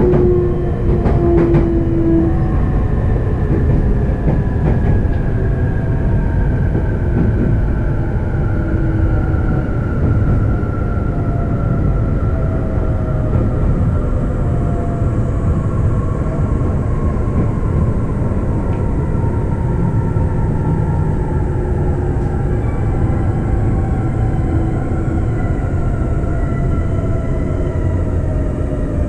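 E531-series electric train running, heard inside a motor car: the rumble of wheels on rail with the whine of the traction motors and inverter falling steadily in pitch as the train slows toward a station. A few sharp clicks sound in the first seconds.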